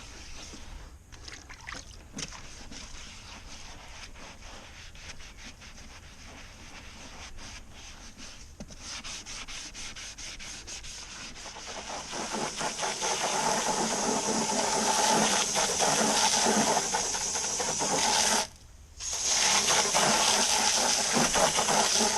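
Scrubbing a stained plastic kayak hatch liner in a diluted degreaser solution. The rubbing strokes are soft and uneven at first, then grow louder and steadier about halfway through, with a short break near the end.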